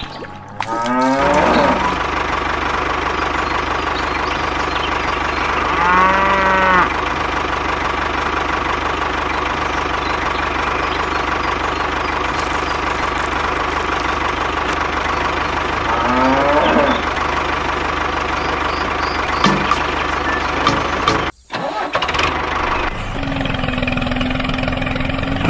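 A tractor engine running steadily, with a cow mooing four times: about a second in, around six seconds, around sixteen seconds and near the end. The engine sound cuts out briefly about three-quarters of the way through.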